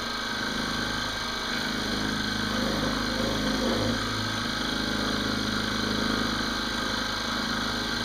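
Benchtop milling machine running at about 1500 RPM, its end mill taking slow, light passes in a metal blank: a steady machine hum.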